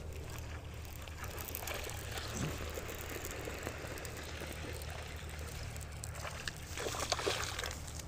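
A baitcasting reel being cranked to retrieve a lure, with faint ticking and handling clicks that are strongest about seven seconds in, over a steady low hum.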